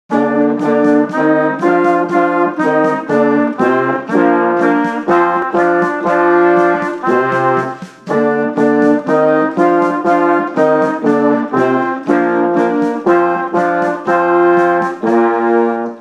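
A band, led by its brass, playing a lively passage of short, detached chords in a steady rhythm, with a brief break about halfway through.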